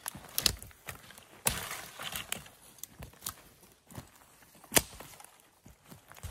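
Dry dead twigs and brush crackling and snapping as a long dead branch is handled and laid down and feet step through the dry undergrowth, with a run of crackling early on and one loudest sharp snap about three-quarters of the way through.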